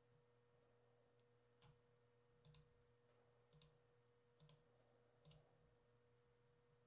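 Near silence with a faint steady hum and five faint computer mouse clicks, about one a second.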